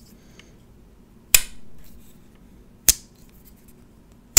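Jack Wolf Knives Sharpshooter Jack slip joint knife's blade being walked open and shut on its titanium backspring, giving three sharp snaps about a second and a half apart.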